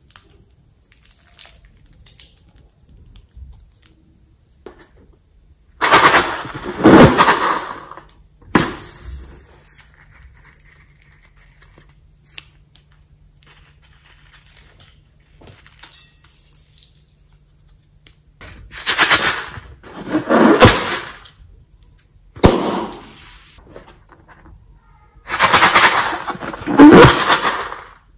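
Slime being squeezed out of balloons into a bowl of slime, in several loud bursts of one to two seconds each, with quiet handling between.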